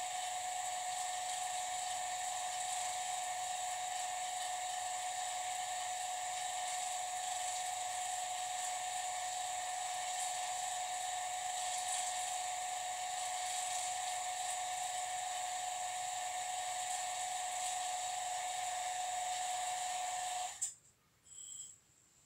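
Small electric vacuum pump running with a steady high whine, then cutting off suddenly near the end, followed by one brief short sound.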